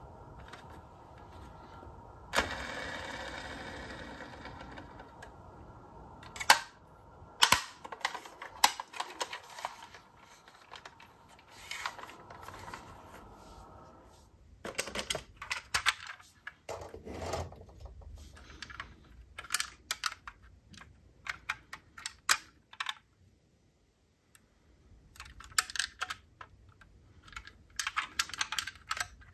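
Irregular clicks, taps and light rattles from hands handling diecast metal model cars and their boxes, with a sudden noisy rustle about two seconds in that fades over a couple of seconds.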